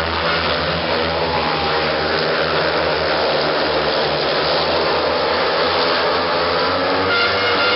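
Several 500cc single-cylinder speedway motorcycles race around the dirt track, their engines held at high revs. The pitch rises a little near the end.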